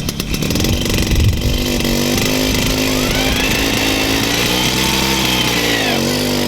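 Tomos moped's 50 cc single-cylinder two-stroke engine running, its pitch rising and falling gently as the throttle is opened a little, then dropping about six seconds in.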